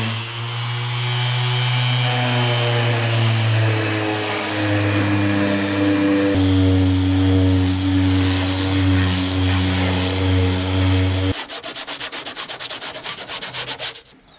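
Makita random orbital sander running steadily against fiberglassed plywood, its motor hum dropping slightly in pitch about six seconds in. About eleven seconds in the sander stops and gives way to fast, rhythmic hand-sanding strokes, several a second, which end near the close.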